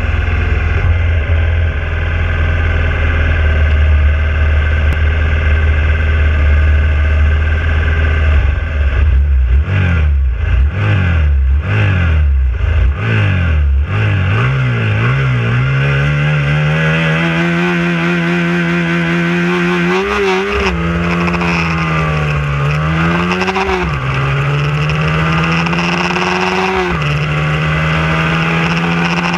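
Hyosung race motorcycle's engine heard onboard, idling steadily, then revved up and down several times on the grid. It then pulls away, the revs climbing and dropping sharply at each of about three gear changes, with other race bikes' engines around it.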